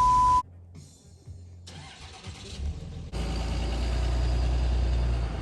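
A loud, steady high beep tone cuts off just after the start. About three seconds in, a car engine comes in abruptly and runs steadily.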